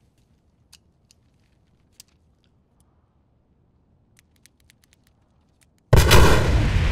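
Faint scattered clicks as a handheld remote detonator is pressed and fiddled with, then about six seconds in a building explosion goes off suddenly and very loudly, with a heavy low rumble that carries on.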